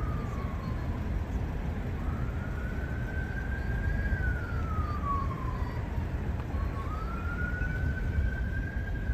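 A single siren-like wailing tone that slowly rises, holds, then glides down, repeating about every four seconds, over the low rumble of a slow-moving car.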